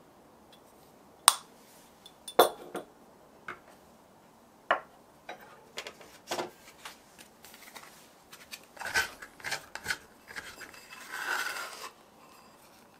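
Sharp clinks of a metal spoon against a stainless steel tray, the loudest about a second in, then scattered knocks and clinks of a glass bowl being handled, and a short scraping rub near the end.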